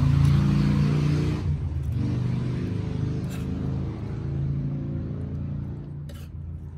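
A motor vehicle's engine running, loudest at the start and fading over the following seconds as it moves away, with a couple of faint clicks.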